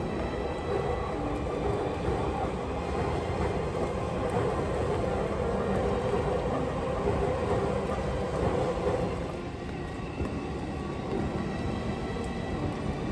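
Low rumbling noise of a passing vehicle that builds over several seconds and eases off about nine seconds in.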